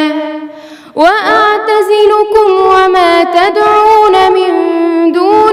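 A female reciter chanting Quran verses in melodic tajweed style. A long held note tapers off, there is a short breath just under a second in, and then a new drawn-out phrase begins with many pitch turns and ornaments.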